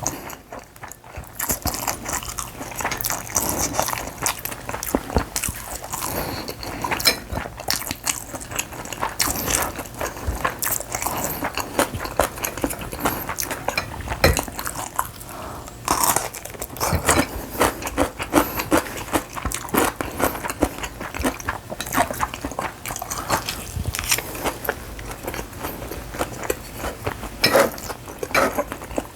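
A person eating close to the microphone: steady chewing with many irregular crunches and small mouth clicks.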